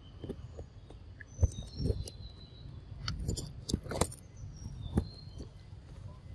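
Long-tailed macaque biting and chewing a ripe mango close up: irregular smacks and clicks of eating, the loudest about a second and a half, four and five seconds in. Birds chirp faintly in the background.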